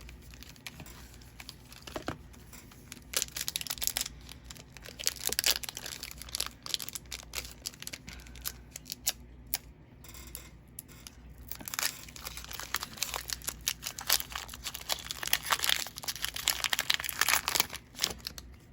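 Foil wrapper of a Pokémon trading card booster pack being torn open and crinkled by hand, in irregular bursts of crackling, busiest in two stretches.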